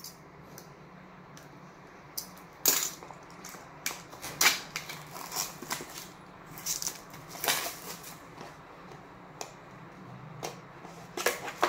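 Plastic shrink wrap crinkling and tearing in a string of short, sharp crackles as it is cut with a utility knife and peeled off a cardboard phone box.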